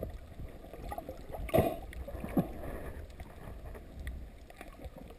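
Underwater sound picked up by a camera held just below the surface: a steady low rumble of moving water, with two brief louder sounds, about one and a half and two and a half seconds in, the second a short pop that falls in pitch.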